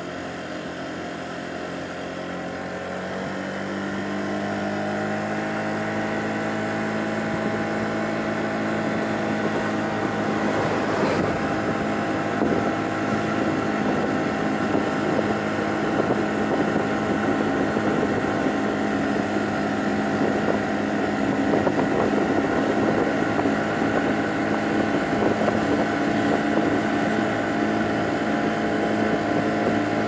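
Honda Giorno 49cc scooter's single-cylinder engine pulling up to speed, its pitch rising over the first few seconds, then running steadily at cruising speed, with wind rushing over the microphone.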